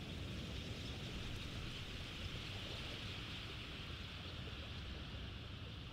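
Steady shoreline ambience: a continuous hiss, strongest in the upper middle, with a low rumble underneath, from small waves washing on the beach and wind.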